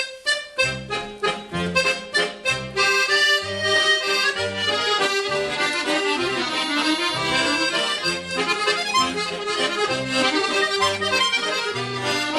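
Outro music led by accordion, starting abruptly with quick chord stabs over a steady bass rhythm.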